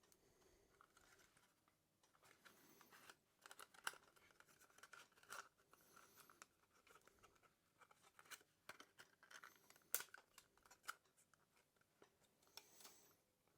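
Faint handling sounds of small laptop parts: scattered light clicks and short scraping, rustling stretches, with the sharpest clicks about four and ten seconds in.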